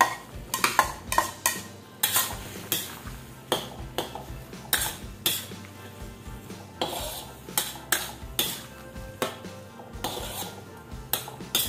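Metal spatula clanking and scraping against a metal wok as cut cabbage and other vegetables are stirred, in irregular strokes about once or twice a second.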